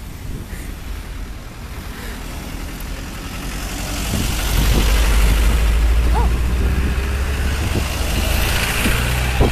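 Convoy of water tanker trucks driving past close by, one after another. Their engines get louder about four seconds in and stay loud with a low, steady engine note.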